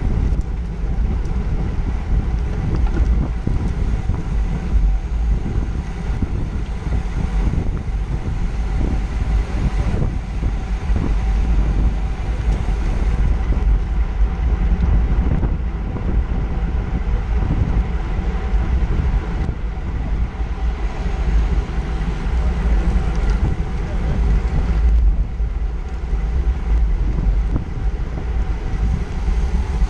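Wind buffeting the microphone of a camera on a racing bicycle moving at about 18–25 mph, a steady deep rumble.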